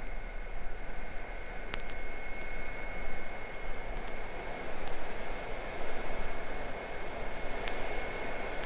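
Boeing 747 jet engines running steadily, heard from inside the cabin after landing: a steady rush under a high, even turbine whine, with a few faint clicks.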